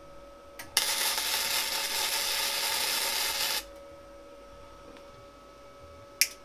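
MIG welder arc crackling steadily for about three seconds while tack welding, starting and stopping abruptly. A brief click comes just before it and another near the end.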